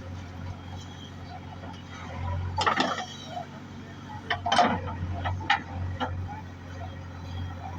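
Diesel engine of heavy earthmoving machinery running steadily, with a series of sharp clanks and rattles about two and a half to six seconds in.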